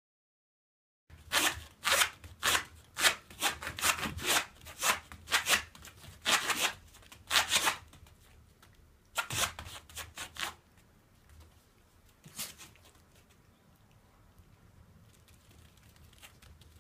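A miniature dachshund's claws scratching and scraping at a foam floor mat, a run of quick scratchy strokes about two a second, then a few more and one last one: the ground-scratching dogs do after toileting, here her cue that she has finished.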